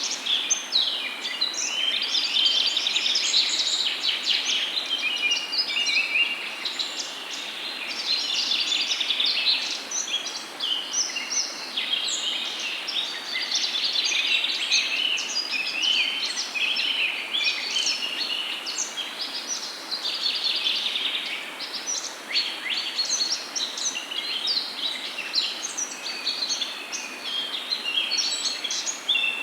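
A chorus of songbirds: many overlapping short chirps and trills without pause, over a steady background hiss.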